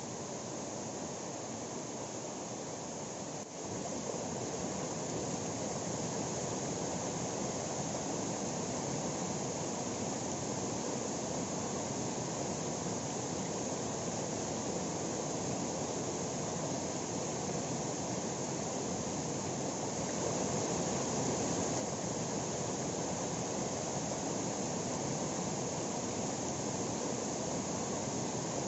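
Steady rush of falling water from a waterfall, an even unbroken roar with a faint click about three seconds in.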